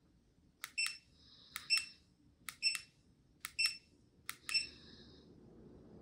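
A smart ceiling fan's receiver beeping five times, about once a second, each a quick double beep answering a press on its handheld remote. Near the end the whoosh of the spinning DC-motor fan's blades grows steadily louder as the fan speeds up.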